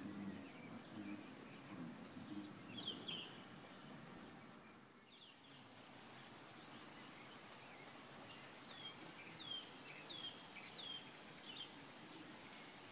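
Faint outdoor background hiss with a small bird calling: a couple of short chirps early on, then a run of five short downward chirps in the second half.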